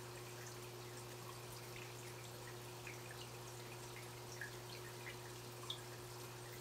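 Aquarium water dripping and trickling as a scatter of small, irregular plinks, over a steady low hum.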